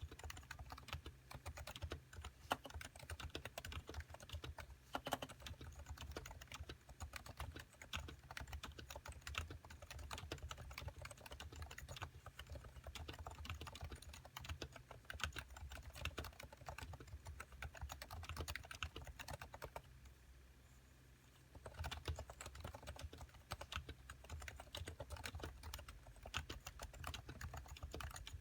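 Fast typing on a factory-silenced Topre Realforce 87U (Type-S) keyboard with 45 g electro-capacitive rubber-dome switches: a dense run of soft, damped keystrokes. The switches are a little less thocky than other Topre boards. The typing stops for about two seconds roughly two-thirds of the way through, then resumes.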